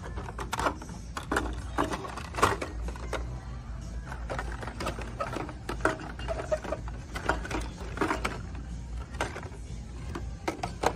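Plastic blister-pack cards of die-cast toy cars clacking and rattling on metal display pegs as they are pushed and flipped through by hand. The clicks come irregularly, several to a second, over a low steady hum.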